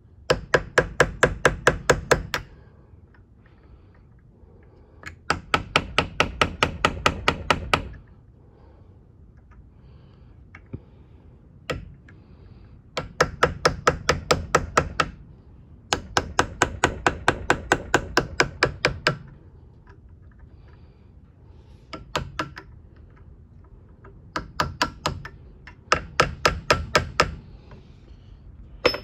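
Small ball-peen hammer tapping a hand-held steel tool against a broken, soft steel thumb screw held in a vise. The taps are sharp and metallic and come in quick runs of about five a second, each run lasting two to three seconds, with pauses between. The tool is cutting a dimple in the screw stub to get it to turn.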